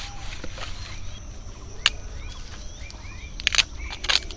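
Sharp wooden knocks of firewood sticks being handled and struck: one about two seconds in, a quick pair a little later and one more near the end. Birds call faintly between them.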